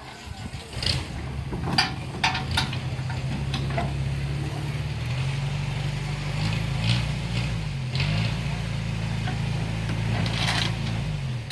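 An engine running steadily, its pitch shifting up and down about halfway through, then cutting off near the end, with scattered clanks and knocks over it.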